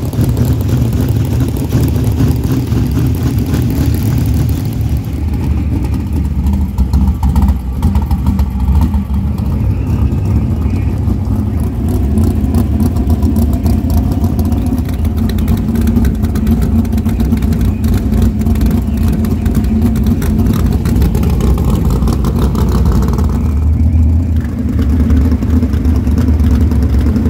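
Dirt-track race car engines with open exhausts running loud and revving, the sound steady throughout.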